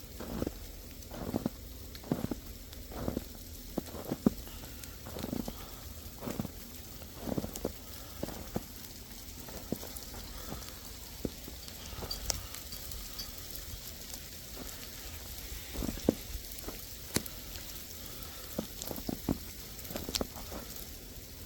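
Footsteps crunching through icy snow and sleet, about two steps a second at first and sparser later, over a light patter of falling sleet.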